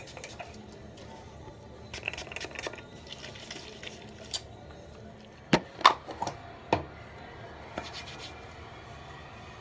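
Handling noise from a bottle: soft clicks and rustles, then a few sharp knocks a little past halfway, the loudest two close together and one more about a second later.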